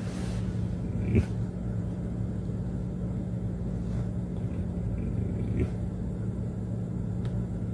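A steady low hum with two faint knocks, one about a second in and one just before six seconds.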